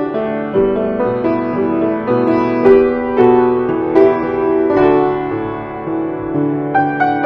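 Piano playing a slow piece of sustained chords under a melody line, with new notes struck every half second or so.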